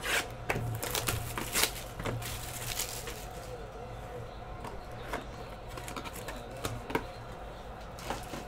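Crackling plastic wrap with small clicks and taps as a shrink-wrapped trading-card box is slit with a box cutter and handled, busiest in the first couple of seconds, over a low steady hum.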